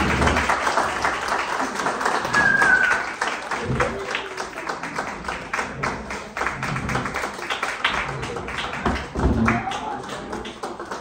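Audience applauding, with voices calling out and a short whistle about two and a half seconds in; the clapping gradually dies down.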